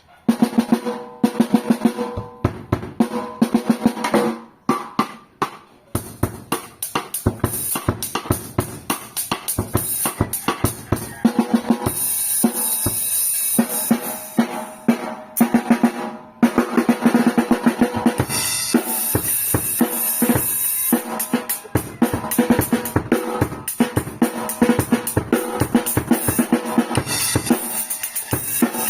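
Drum kit being played: fast snare and bass drum strokes with rolls and ringing drum tone, joined by crashing cymbals partway through.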